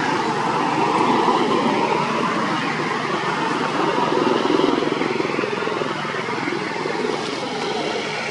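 Continuous engine noise of passing motor traffic, with its pitch wavering up and down.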